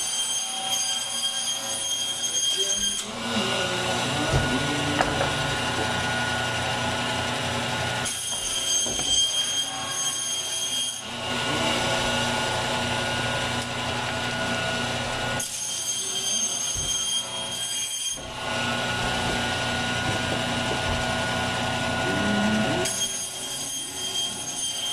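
Electric meat bandsaw running with a steady high whine, its blade cutting through lamb rack three times; each cut turns the whine into a denser grinding noise for about four to five seconds before it returns to the idle whine.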